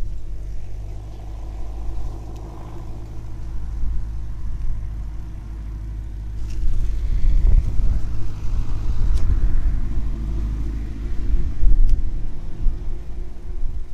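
Bicycle riding noise: tyres rolling on the road with a smooth, steady hum under a heavy low rumble, which gets louder about halfway through.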